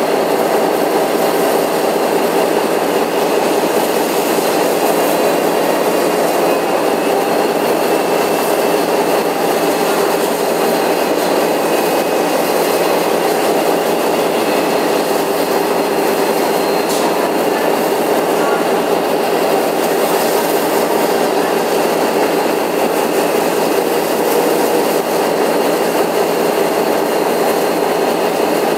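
Victorian Railways R class steam locomotive 707 standing with steam up: a steady hiss with a constant hum running through it, and no exhaust beats, as the engine is not yet moving.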